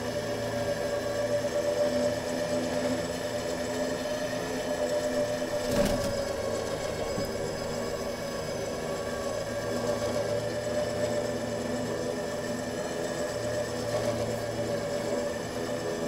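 Vehicle engine running steadily under load while towing a log, with one sharp knock about six seconds in.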